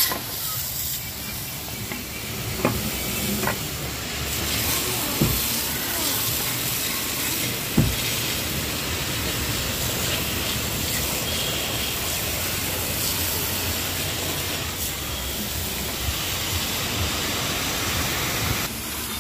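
High-pressure water jet hissing steadily as it blasts grime off aluminium engine castings and an intake manifold, with a few short knocks along the way.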